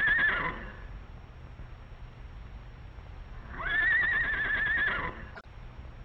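A horse whinnying twice. One wavering call ends about half a second in, and a second call of about a second and a half begins about three and a half seconds in.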